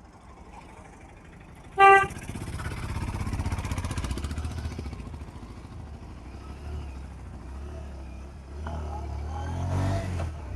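A motorcycle running on the road on a test ride after repair, which the rider says is running smoothly; the engine pulls harder twice. A short, loud horn honk about two seconds in.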